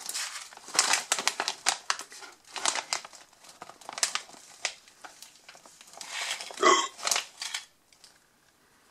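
Crinkling of a plastic potato chip bag being handled and moved around, in irregular bursts of crackle that die away near the end.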